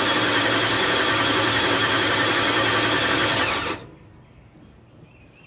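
Starter motor cranking the hot rod's engine steadily without it firing, then stopping abruptly about four seconds in. The engine turns over but won't catch, which the owner puts down to a lack of ignition.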